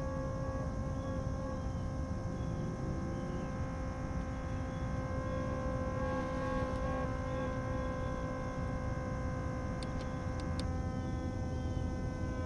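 Sustained drone chord from a battery-powered electronic instrument, several steady tones held together, with the chord shifting to new notes about ten seconds in.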